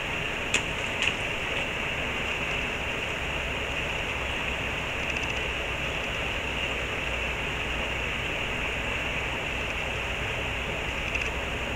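Steady rush of flowing stream water, with a few short sharp clicks about half a second and a second in.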